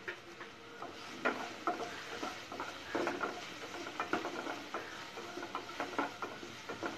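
Wooden spatula stirring and scraping chopped green beans, carrots and capsicum around a nonstick kadai, with a light sizzle of the vegetables frying in oil. The irregular scrapes and soft knocks begin about a second in.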